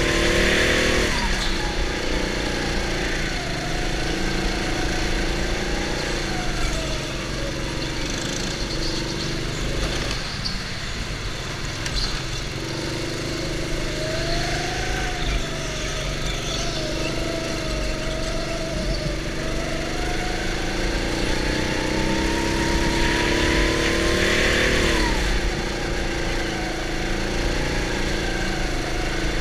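Go-kart's small engine heard from the driver's helmet, its pitch climbing along the straights and dropping sharply as the kart slows for a corner, about a second in and again about twenty-five seconds in, and wavering through the turns in between.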